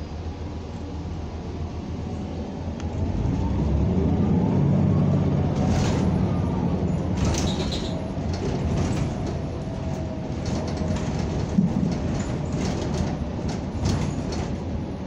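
Inside a CNG-powered NABI 45C-LFW city bus under way: the engine and drivetrain get louder and rise in pitch as the bus speeds up about three seconds in. Short rattles and knocks from the body and fittings follow through the rest.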